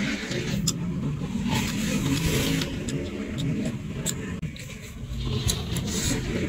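Crunchy chewing of raw green mango close to the microphone, in irregular spells of crisp crunching and clicks, over a steady low rumble.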